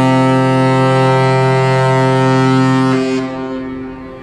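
Ship's horn of the passenger ship KM Bukit Raya sounding one long, loud blast, the signal of the ship leaving its berth. It stops about three seconds in and dies away over the next second.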